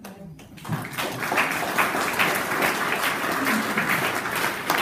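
Audience applauding: many people clapping together. The clapping starts and builds about a second in, then holds steady.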